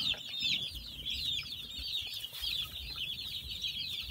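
A large flock of young chicks peeping continuously, many short high-pitched calls overlapping.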